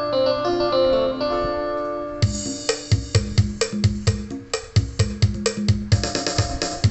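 Yamaha PSR-S750 arranger keyboard playing: a melodic run of single notes for about two seconds, then a drum-and-bass accompaniment style comes in with a steady beat and chords.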